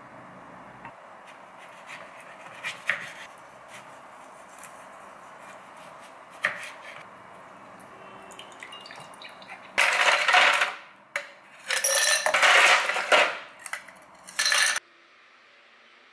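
Light taps and scrapes of a wooden spatula on a saucepan, then from about ten seconds in several loud clattering bursts of ice cubes dropped into a glass jar.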